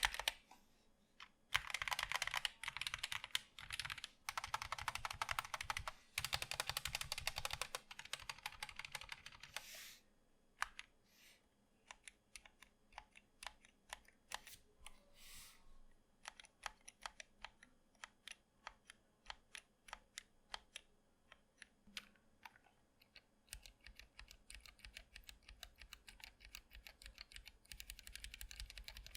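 Zet Blade Optical mechanical keyboard with Kailh Optical Black switches and ABS double-shot keycaps being typed on. Fast, dense typing runs for about the first ten seconds and picks up again near the end, with slower single keystrokes in between.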